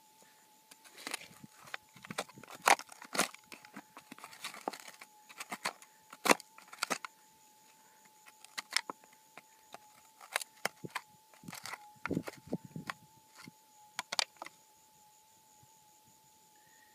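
Hand scraping and rummaging through loose rock and gravel in a bedrock crevice: irregular clicks, knocks and rattles of small stones, with a few sharper clacks of stone on stone. A faint steady high tone runs underneath.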